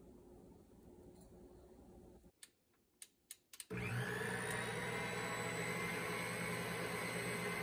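Electric stand mixer started a little past halfway, after a few clicks: its motor runs steadily with a low hum and a high whine as the dough hook turns through flour and oil.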